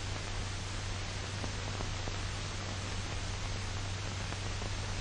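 Steady hiss with a low hum underneath: the background noise of an old film's soundtrack, with no other sound.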